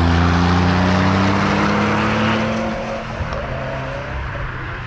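A car engine passes close by at speed, its pitch climbing as it accelerates. About three seconds in it drops away and fades as the car pulls off.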